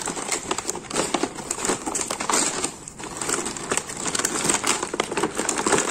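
Clear plastic packaging and a cardboard box crinkling and rustling as they are pulled open by hand: a dense run of crackles, with a brief lull about three seconds in.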